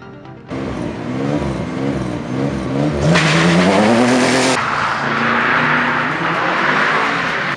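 Subaru Impreza rally cars' engines: revving up and down, then a hard launch with the engine pitch climbing, cut off suddenly past the middle; then a car driven hard on tarmac, engine with tyre noise.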